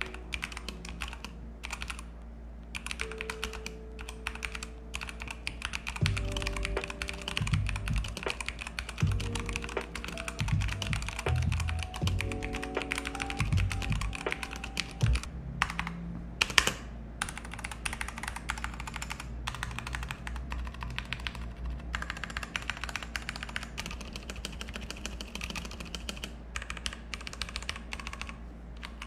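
Typing on a Keychron mechanical keyboard: fast, continuous clacking keystrokes. A short tune of held notes with low thumps plays over it from a few seconds in until about halfway.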